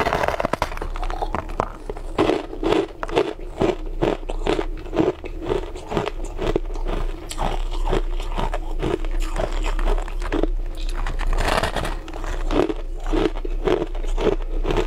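Crushed ice being bitten and chewed, a rapid run of crisp crunches, about three a second.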